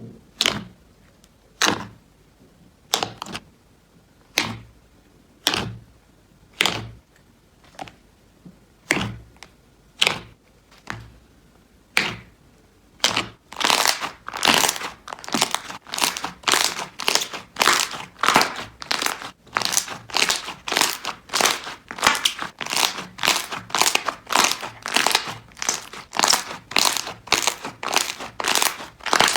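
Slime being squeezed and pressed by hand, each squish a short crinkly crackle. The squishes come about once a second at first, then, about halfway through, faster and louder, at about two a second.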